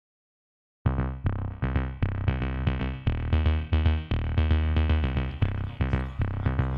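Electronic background music with a drum-machine beat and synthesizer, starting about a second in.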